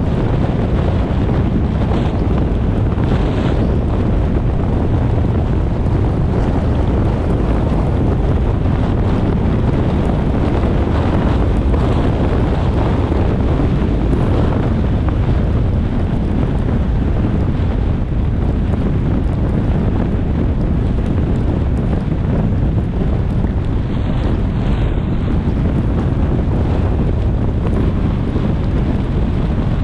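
Steady wind and tyre noise from a car driving on a wet expressway in the rain, with wind buffeting the microphone.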